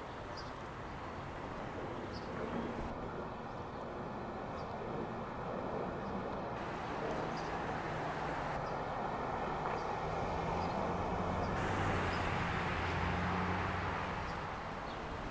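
Boeing 737 jet airliner on landing approach passing overhead: a steady jet-engine rumble that swells gradually, is loudest near the end, then starts to fade.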